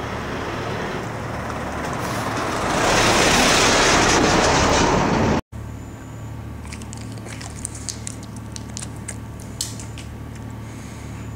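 A truck driving past close by, its noise building over a couple of seconds and loudest just before it cuts off abruptly about halfway through. Then a quieter low steady hum with a few faint clicks.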